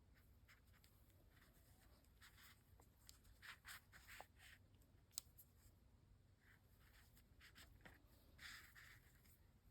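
Faint, soft rustles of yarn and a darning needle being drawn through a crocheted head, in several short strokes, with one small sharp click about five seconds in.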